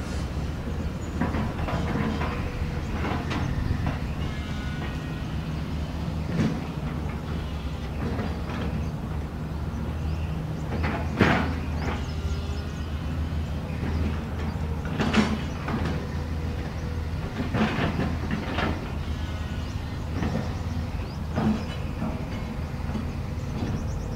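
Diesel engine of a backhoe excavator running steadily while it digs and clears brush, with irregular knocks and clanks from the work; the loudest knock comes about eleven seconds in.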